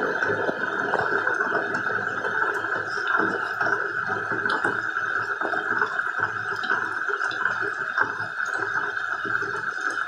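Steady rain falling: a continuous even hiss at a constant level, dotted with many small taps of individual drops.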